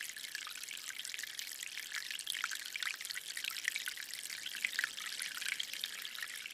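Water flowing slowly out of a hose, a steady trickling and spattering.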